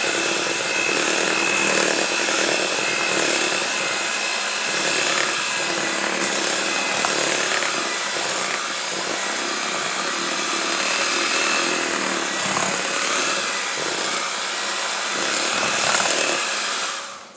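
Electric hand mixer running steadily with a high whine, its beaters churning flour into a thick cake batter in a mixing bowl. The motor cuts off at the end.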